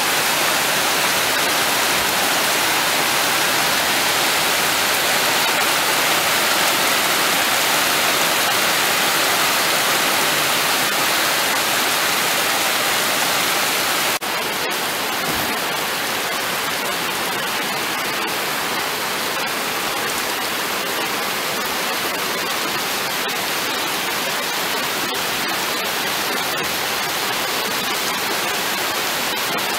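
Heavy rain falling steadily, a dense even hiss. About fourteen seconds in the sound cuts to slightly quieter rain with the sharp ticks of nearby drops.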